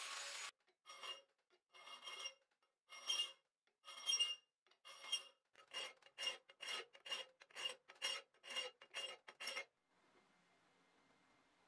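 Flat hand file rasping across the steel tang of a knife clamped in a vise, in separate strokes, about one a second at first and then about two a second, stopping near the end. At the very start an angle grinder cutting the steel is heard briefly and cuts off.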